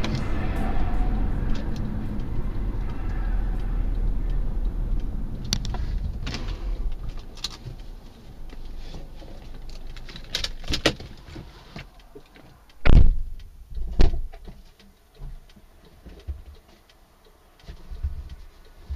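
Road and engine noise inside a moving car, dying away as the car slows to a stop. A few sharp clicks follow, then two heavy thumps about a second apart, two thirds of the way in.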